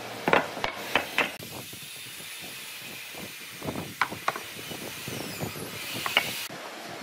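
Heavy wooden blocks set down and knocked against a wooden workbench: three sharp knocks in the first second or so, then scattered lighter taps and clicks as the wood is handled, over a steady hiss.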